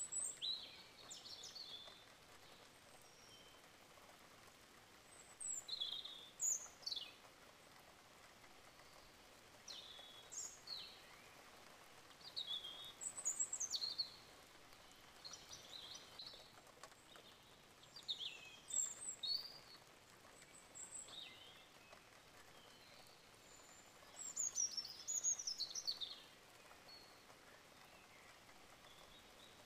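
Birds chirping faintly: short, quick falling chirps in clusters every few seconds, over a steady soft hiss.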